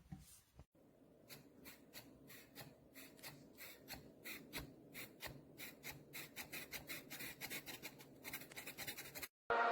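Faint, quick series of small ticks, several a second, over a low hum, growing slightly louder and denser, then cutting off near the end.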